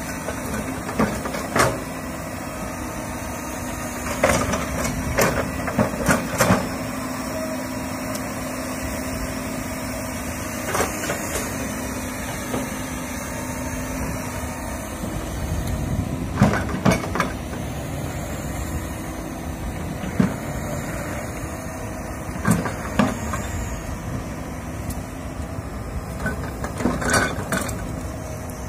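Komatsu hydraulic excavator's diesel engine running steadily under load while it digs and clears brush, with a steady hum that fades about halfway through. Repeated sharp knocks and cracks come in short clusters as the bucket strikes soil and tears through branches and small trees.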